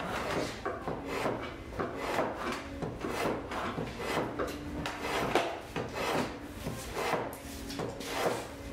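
Travisher shaving the hollow of a wooden Windsor stool seat: a steady run of short cutting strokes, about two or three a second, slicing across the grain to lower and shape the seat.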